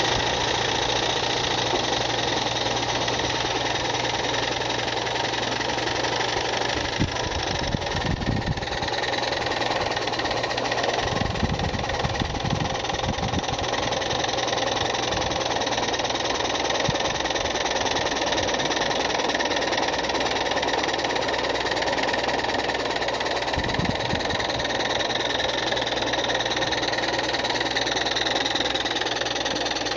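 Single-cylinder live-steam model traction engine (Maxitrak 1-inch scale Case 80 hp) running under load as it hauls a seated man on a trolley, with a steady, fast-merging steam exhaust and hiss.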